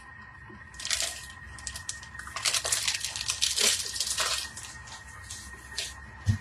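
Irregular rustling and crunching handling noises in short clusters, with a brief low thump near the end, over a faint steady high tone.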